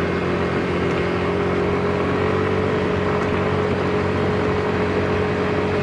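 Small motorbike engine running steadily at cruising speed, a level hum under a constant rush of wind and road noise.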